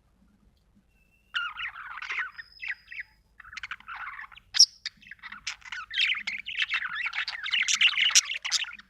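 Budgerigar chirping and warbling in a rapid, chattering stream, starting after about a second of quiet, with a brief pause partway through and a sharp, loud squeak around the middle.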